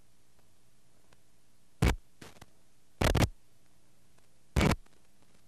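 Faint steady hiss broken by three short, loud crackles about a second and a half apart, the middle one a little longer.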